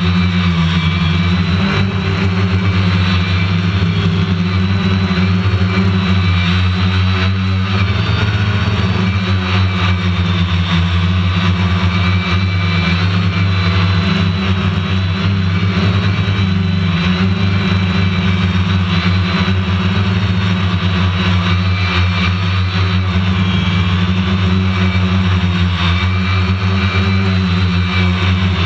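Quadcopter drone's motors and propellers humming steadily and loudly as it descends.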